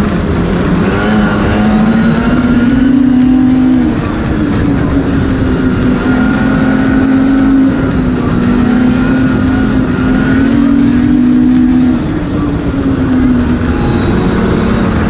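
Arctic Cat 800 two-stroke snowmobile engine running on the trail, its pitch rising and falling with the throttle every few seconds. Background music plays along with it.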